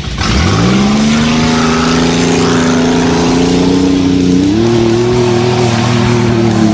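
Car engine revving up hard under acceleration, then held at high revs, and revving higher again about four and a half seconds in.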